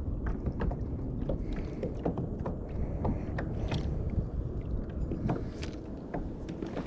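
Small irregular clicks and knocks of gear being handled against a kayak, over a steady low rumble of wind on the microphone.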